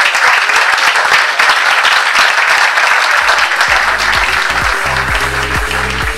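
Audience applauding. About four seconds in, electronic music with a deep pulsing bass comes in under the clapping.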